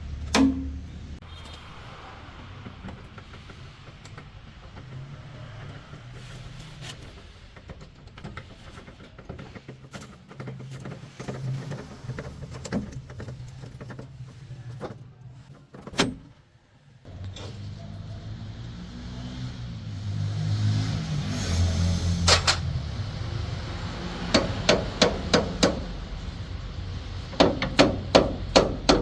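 Hammer blows on metal during truck leaf spring and spring pin work, over a steady low engine hum. Scattered knocks give way near the end to two quick runs of even strikes, about three a second.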